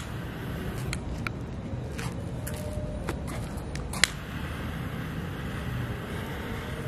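Steady hiss of a butane jet-flame lighter held to the fuse of an anar (cone fountain firework), with a few sharp clicks, the loudest about four seconds in.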